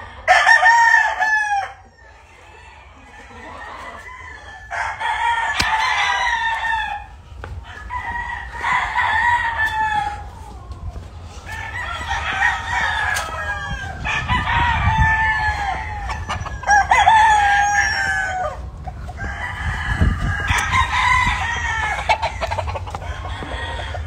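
Gamefowl roosters crowing in turn, about seven long crows one after another a few seconds apart, some overlapping as different birds answer each other. A low rumble and a few clicks sit under them in the middle.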